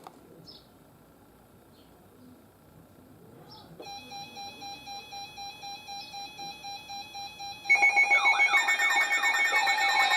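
Electronic emergency alert tones. About four seconds in, a faint beeping tone starts pulsing three to four times a second. Near eight seconds a much louder mix of alarm tones joins, some steady and some warbling up and down, signalling an incoming tornado warning.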